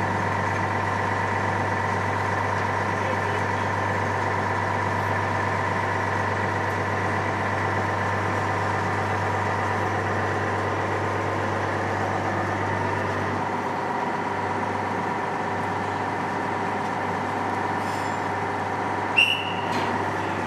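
Small car ferry's diesel engine running steadily with a deep hum and a steady drone; about two-thirds through the deep hum drops away as the engine settles lower. Near the end a brief sharp knock with a short high squeal stands out above the engine.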